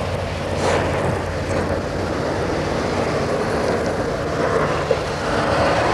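Steady wind noise on the microphone, a hiss over a constant low hum.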